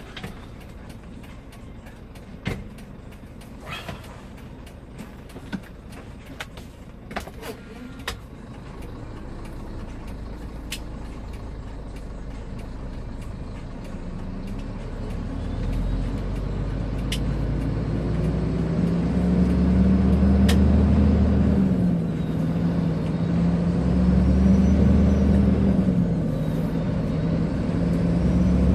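Scania 124L 420 truck's diesel engine pulling away and building up, getting steadily louder, with the note dropping back briefly twice near the end as it changes gear. A run of sharp clicks and knocks comes in the first few seconds.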